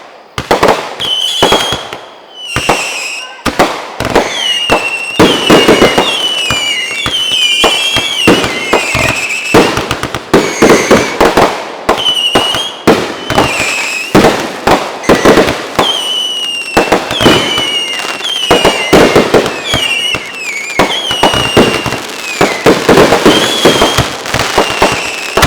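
A barrage of consumer aerial fireworks: rapid, loud bangs in quick succession throughout, threaded with many short, high whistling tones that slide in pitch.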